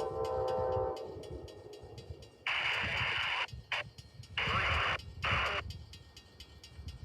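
An Amtrak diesel locomotive's multi-chime air horn sounds a chord that cuts off about a second in, over the low rumble of the passing train. From about two and a half seconds in, a scanner radio gives several abrupt bursts of hiss that start and stop sharply.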